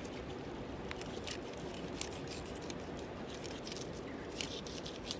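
A knife cutting and scraping into a large koi, making a string of short, crisp clicks and scrapes over a steady hiss.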